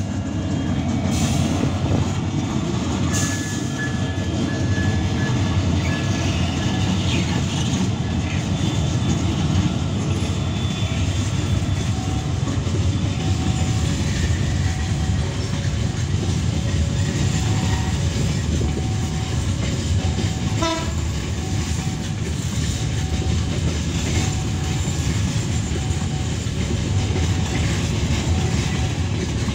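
A loaded coal train passing close by: the deep, steady rumble of its lead diesel locomotives, then the heavy open-top coal wagons rolling past on the rails.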